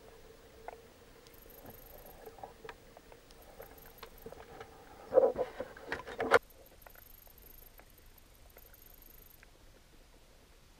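Underwater ambience picked up through a submerged camera's housing: scattered faint clicks and crackles over a low steady hum. About five seconds in comes a cluster of louder crackling clicks that cuts off suddenly after a second or so.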